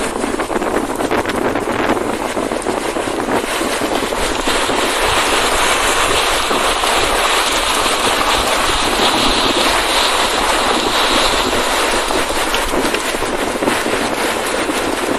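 Steady, loud rushing of strong wind, growing louder for several seconds in the middle.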